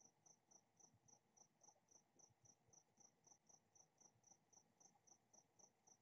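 A cricket chirping faintly and steadily, about four short high chirps a second.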